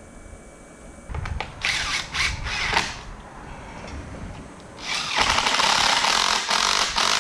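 Cordless drill working on an aluminium door threshold over concrete: a few short bursts about a second in, then a steady, rattling run from about five seconds in.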